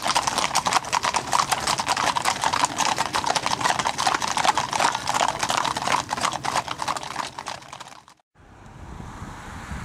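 Hooves of several ridden horses clip-clopping on a hard surface in a rapid, overlapping patter. The hoofbeats fade and cut off about eight seconds in, leaving a faint wind rumble.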